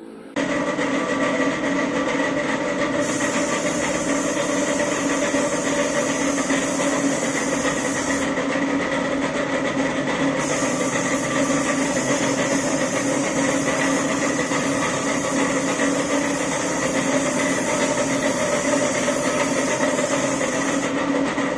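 A motor running steadily at a constant pitch, with a high air hiss that switches on and off twice over it.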